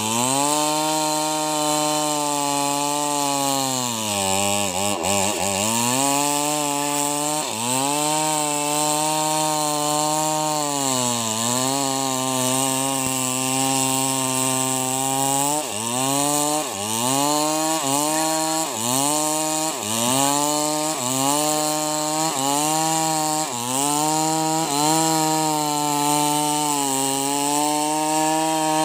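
New West 588X two-stroke chainsaw running under load as it cuts through a large sengon log. Its engine pitch sags and picks up again several times, and more often in the second half as the cut goes on.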